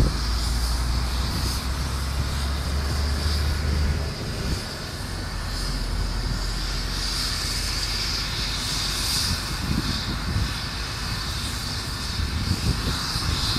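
Road traffic passing on a main road: a lorry's low engine drone that stops about four seconds in, then cars going by, over a steady high whine.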